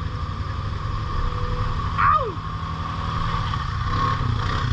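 ATV engine running steadily at a low, even rumble. About two seconds in, a short, loud sound drops quickly in pitch.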